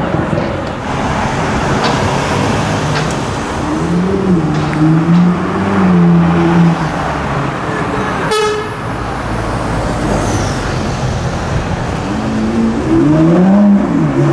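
Lamborghini Huracán STO's V10 revving as it pulls away through traffic, its pitch rising and falling several times, with a brief sharp sound about eight seconds in. Near the end a Lamborghini Aventador SVJ's V12 rises in pitch as it accelerates closer, over steady city traffic noise.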